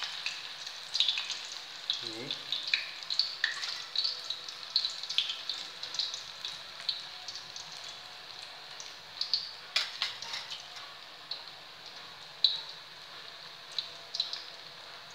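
Breadcrumb-coated onion rings deep-frying in hot oil in a wok: a steady sizzle full of irregular crackles and pops, with one sharper pop about ten seconds in.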